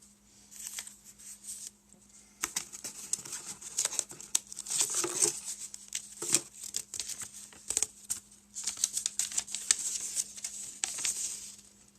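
Packaging crinkling and rustling as it is handled, in irregular bursts of small crackles. It starts in earnest about two and a half seconds in, with a short lull about two-thirds of the way through.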